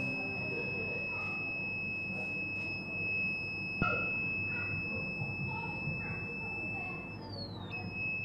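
The piezo buzzer on a thermistor and LM358 fire alarm circuit board beeps as one continuous high-pitched tone, the alarm set off by heat at the thermistor. Near the end the pitch slides down, comes back briefly and stops. A single click sounds about four seconds in.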